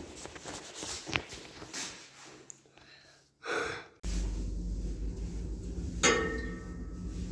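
Elevator giving a short, loud sneeze-like hiss about three and a half seconds in. A steady low hum of the running elevator then starts abruptly, and a sharp clunk comes about six seconds in.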